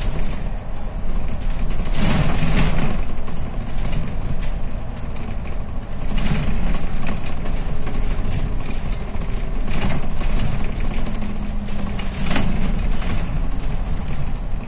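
A double-decker bus's engine running, with road noise, heard from inside the cabin. Several brief, louder surges of noise break through it.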